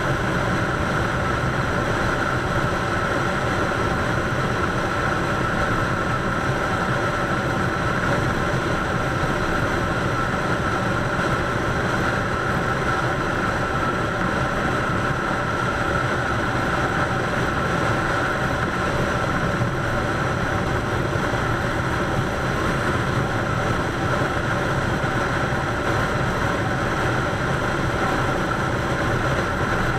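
Harley-Davidson Softail's V-twin engine running steadily at highway cruising speed, with no change in pace.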